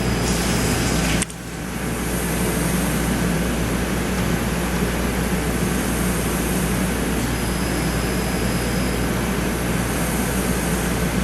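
Steady mechanical noise with a low hum from a CNC machining center running its program; the sound drops sharply about a second in and builds back up over the next second.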